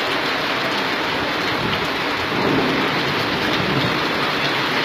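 Steady, loud rush of flash-flood water pouring down a paved street.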